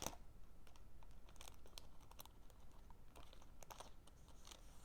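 Faint, scattered clicks and light taps of Pokémon trading cards and their packaging being handled on a tabletop.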